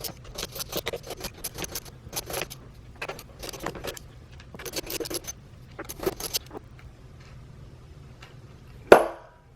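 A hand tool clicking and clinking on the 10 mm bolts that hold a steering-wheel airbag module as they are undone, in about six short bursts. One loud knock comes near the end.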